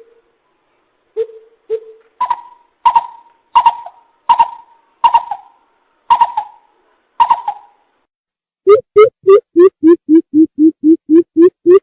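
Greater coucal calling: a few deep hoots, then about eight higher notes that fall away, spaced under a second apart. From about nine seconds in comes a fast, even run of deep hoots, roughly three a second.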